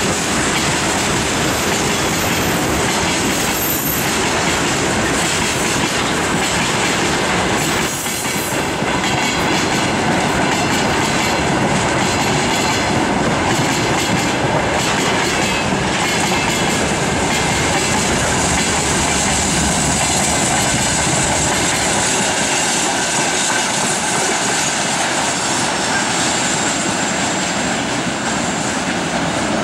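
Freight train of rail tank cars rolling past: a steady, loud rumble and clatter of steel wheels on the rails.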